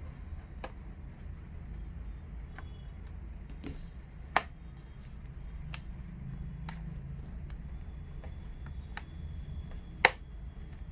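Scattered sharp clicks from handling an HP ProBook 440 G5 laptop, most of them light, with two much louder snaps, one about four seconds in and one near the end, over a low steady hum.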